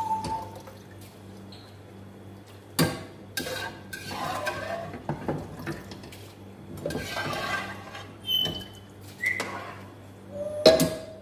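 A spoon knocking and scraping against a strainer bowl and the rim of a cooking pot as soaked rice is scooped into boiling water: a handful of sharp clinks a few seconds apart, with short scraping spells between them, over a steady low hum.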